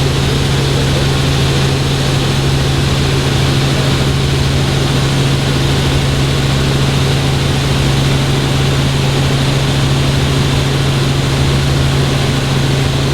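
Helicopter running steadily: a constant, loud engine and rotor drone with a strong low hum.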